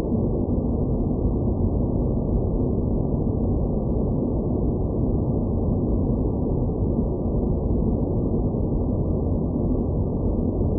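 Synthesized space-planet ambience: a steady, dark, muffled rumble of low noise with no high end and no separate events.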